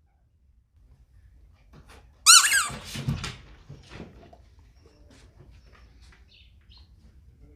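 Squeaky toy sound ball giving one loud, warbling squeal about two seconds in, followed by a brief lower sound and then faint scuffling ticks.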